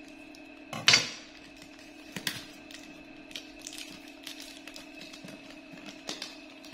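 Scattered clicks and knocks of a cardboard gift box being cut open and handled, with a louder knock about a second in, over a steady background hum.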